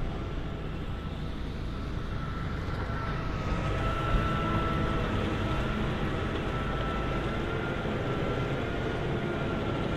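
John Deere 8R 370 tractor's six-cylinder diesel running steadily as it pulls a Baastrup CTS 24 tipper trailer past, with a steady high whine over the engine note. It grows louder about three seconds in as the rig comes close.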